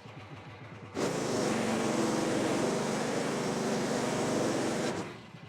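Band sawmill's engine idling, then running at full throttle with the blade turning. The loud sawing noise starts abruptly about a second in and drops off sharply near the end.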